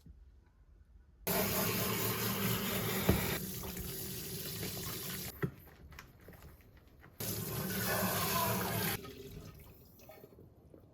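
Tap water running into a sink, turned on for about four seconds, then shut off and run again for about two seconds, with a couple of light knocks in between.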